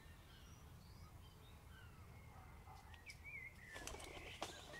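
Near silence: faint bird chirps in the background, with a few faint clicks in the second half.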